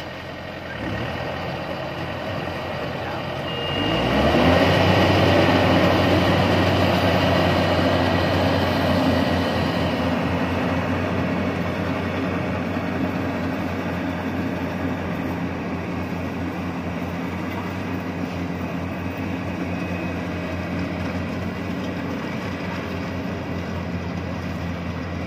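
Yanmar YH850 combine harvester running in a rice field: its diesel engine and the cutting and threshing machinery run together. The engine picks up speed and grows louder about four seconds in, then runs steadily under load.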